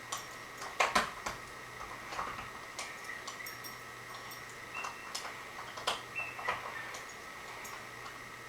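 Casablanca Zephyr ceiling fan coasting down with its power cut, giving irregular light ticks and clicks, the loudest about a second in, over a faint steady hum.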